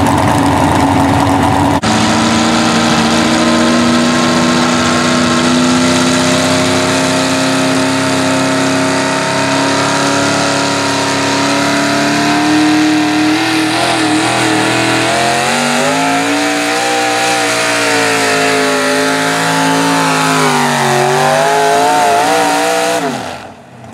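Single-engine modified pulling tractor's engine running at high revs under load, its pitch climbing slowly at first, then surging up and down repeatedly in the second half. Near the end the revs drop away quickly.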